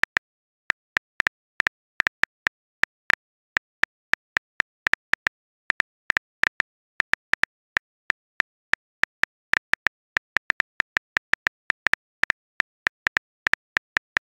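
Smartphone keyboard click sounds as a message is typed: a steady, irregular run of short, sharp clicks, about four a second.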